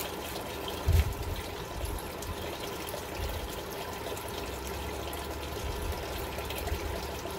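Wood fire crackling and hissing in an outdoor fire pit, with scattered small pops, and a low thump about a second in.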